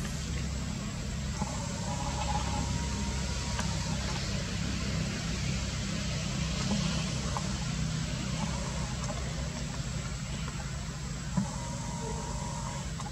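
Steady low rumble with an even hiss over it, like a distant engine or wind. Faint higher tones come and go about a second and a half in and near the end, and there is one sharp click late on.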